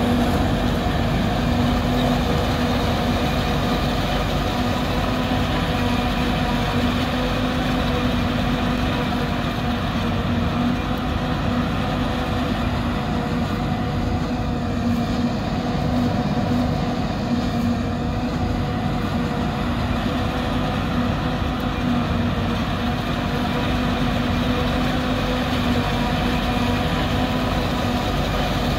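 New Holland 2100 self-propelled forage harvester running steadily while chopping corn for silage: a constant machine hum with a higher tone above it, over an even rumbling noise.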